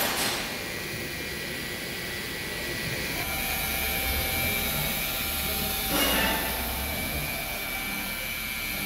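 Corded electric rotary polisher running with its foam pad pressed against a truck's painted body panel, buffing the paint: a steady motor whine over a rushing pad noise, the whine growing stronger about three seconds in.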